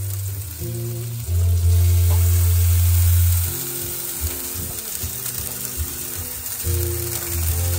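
Food sizzling steadily on a grill, under background music whose sustained low chords change every few seconds.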